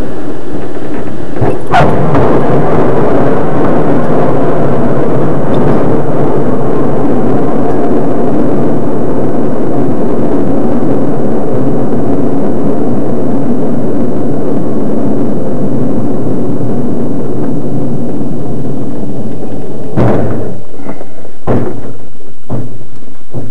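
Schleicher ASK-21 glider touching down with a sharp bump about two seconds in, then the loud rumble of its main wheel rolling on the runway and air rushing past the canopy, fading as it slows to a stop. A few knocks near the end as it comes to rest.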